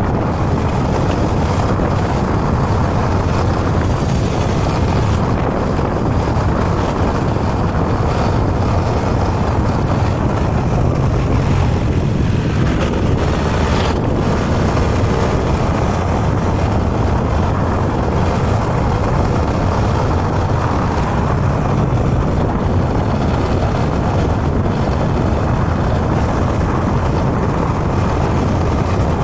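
Motorbike engine running steadily at cruising speed, with wind rushing over the action camera's microphone and tyre noise on the road.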